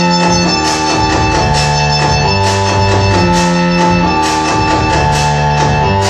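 Electronic music played on a modular synthesizer: a repeating bass line of held notes, each changing about once a second, under sustained organ-like drone tones.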